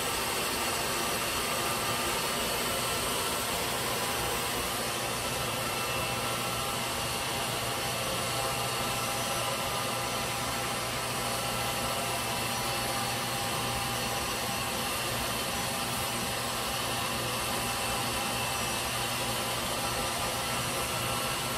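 Electric mixer running steadily at speed, whipping heavy cream: an even motor whir with a hiss that does not change.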